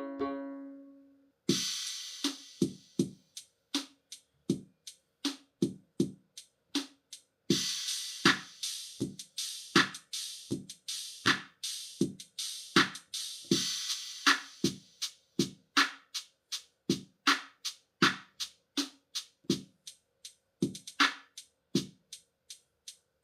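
Suzuki Omnichord OM-108's built-in rhythm machine playing a drum pattern of kick, snare and hi-hat beats, starting about a second and a half in after the tail of a decaying chord. The hi-hat or cymbal part is busier for a stretch in the middle.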